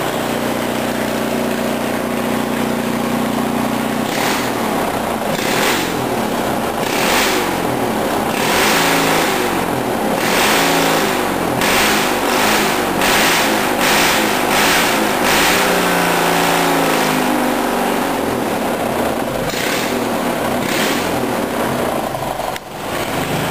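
20hp Briggs & Stratton twin-cylinder riding-mower engine with straight-piped true dual exhaust and no muffler, running loud. It runs steadily at first, is blipped in a series of quick revs from about four seconds in to about sixteen seconds in, then settles back to a steadier run.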